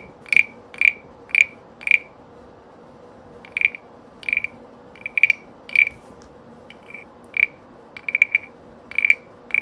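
Wooden croaking-frog rasp scraped with its stick: a series of short croaking rasps, about two a second, with a pause of about a second and a half early on and a few strokes in quick succession near the end.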